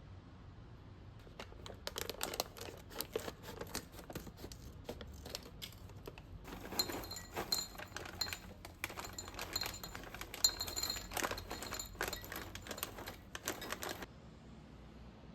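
Popcorn kernels popping in a pot: rapid crackling pops that grow denser about halfway through, with a faint metallic ring, then stop abruptly near the end.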